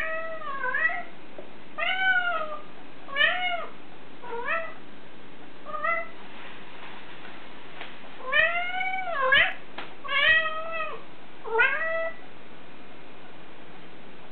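Domestic cat meowing about nine times, each meow rising then falling in pitch, with a longer drawn-out meow about eight seconds in.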